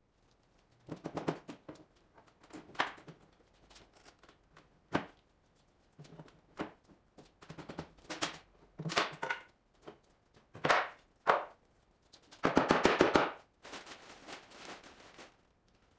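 A wooden shipping crate being hammered and pried open: irregular knocks and bangs on the boards with pauses between, and a quick flurry of blows a little past the halfway point toward the end.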